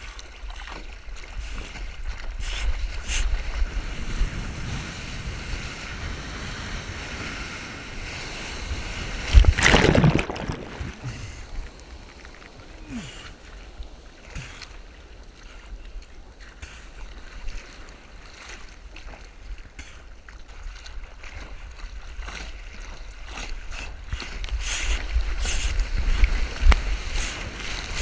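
Seawater sloshing and splashing around a surfboard being paddled through small surf, heard from a camera mounted on the board, with a loud rush of whitewater about ten seconds in and choppier splashing near the end.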